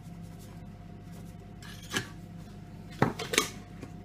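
A spoon scraping and clinking against a bowl as cocoa powder is measured out: one short scrape about two seconds in, then a quick cluster of clinks near the end.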